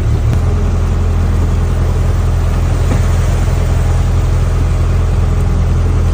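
Fishing boat's inboard engine running steadily, a deep even hum with a rumble over it.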